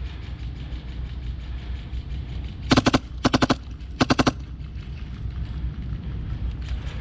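Airsoft gun firing three short full-auto bursts in quick succession, a few seconds in, over steady rapid clicking of other airsoft fire.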